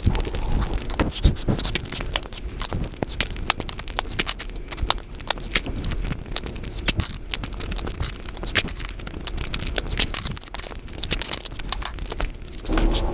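Close-miked eating sounds sped up: a dense, rapid run of wet clicks and smacks from someone chewing Indian sweets.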